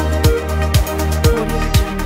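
Electronic music with a steady kick drum, about two beats a second, and crisp high percussion over held synth notes.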